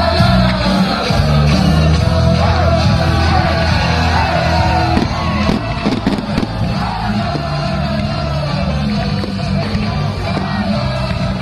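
Rock music with a singer, with a steady bass line.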